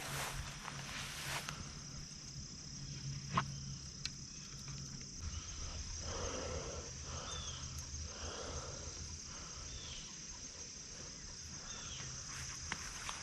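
A steady, high-pitched chorus of insects such as crickets. A few rustling steps come near the start, with a single sharp knock a little later.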